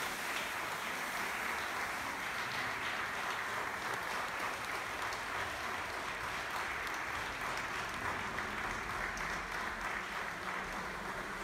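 Audience applauding steadily after a dance performance.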